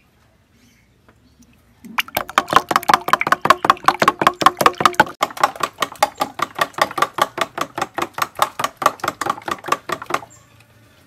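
Metal spoon beating an egg mixture in a stainless steel bowl: a fast, even clinking, about six strokes a second, with a faint ring from the bowl. It starts about two seconds in and stops shortly before the end.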